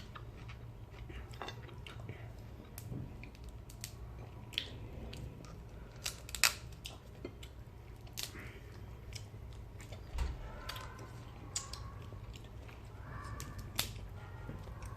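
Quiet eating sounds from a meal of fried fish and crab: chewing, with scattered sharp clicks and small crunches, over a faint low hum.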